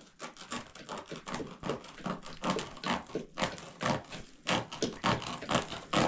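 Plastic sack crinkling and rustling as it is handled, a rapid, irregular run of crackles.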